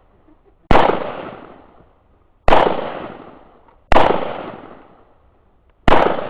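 AR-15 rifle fired in four single semi-automatic shots at an unhurried pace, one every one and a half to two seconds. Each sharp crack trails off in a long echo.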